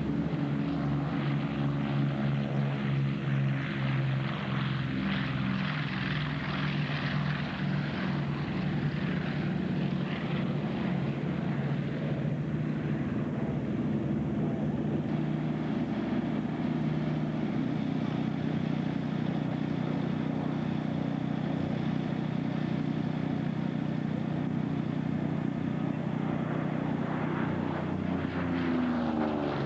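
Twin radial engines of a Douglas A-26 Invader at high power on its takeoff run and low pass, a steady deep propeller drone. Near the end the pitch shifts as the aircraft passes close.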